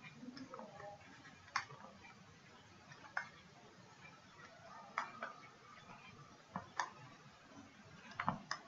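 Faint, irregular sharp clicks of a stylus tapping on a writing surface during handwriting, some in quick pairs, over low background hiss.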